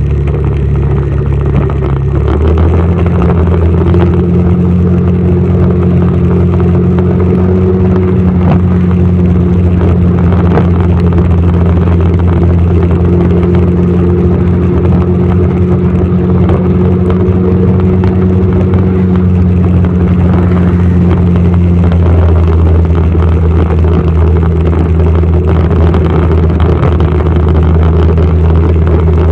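Motorcycle engine running steadily while riding in traffic, over a constant rush of wind and road noise; the engine note shifts about two seconds in and again about twenty-two seconds in.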